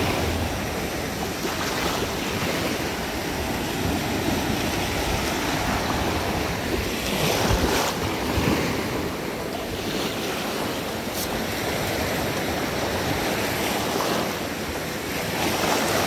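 Gulf of Mexico surf breaking and washing up the beach, swelling and easing several times, with wind rumbling on the microphone.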